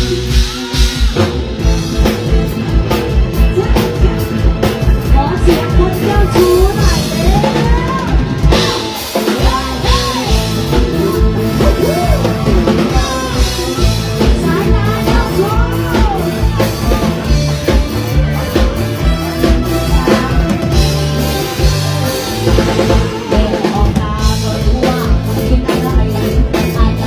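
Live luk thung/mor lam band music through a stage PA. A drum kit keeps a fast, steady beat under a gliding lead melody, and the bass drops out briefly about nine seconds in.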